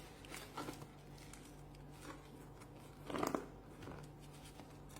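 Plastic packaging crunching and crinkling as a parcel is unwrapped, in a few short bursts, the loudest about three seconds in.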